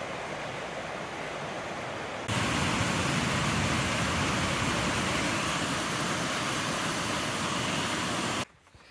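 Rushing mountain stream running high over rocks, a steady roar of water. About two seconds in it jumps to a louder, closer cascade pouring over a rock ledge, which cuts off suddenly near the end.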